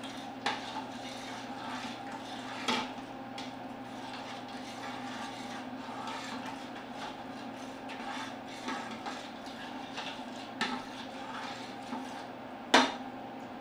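A spoon stirring coconut-milk vegetable stew in a stock pot, knocking against the pot now and then, with the loudest knock near the end, over a steady hum.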